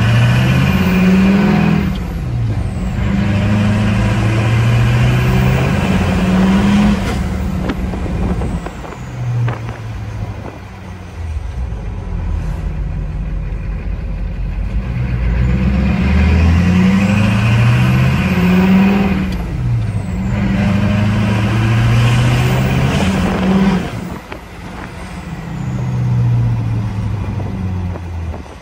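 LLY Duramax 6.6-litre V8 turbo-diesel heard from inside the cab as the truck pulls away through the gears, its pitch climbing in each gear and dropping back at each shift. It eases off and quietens in the middle, then pulls through the gears again.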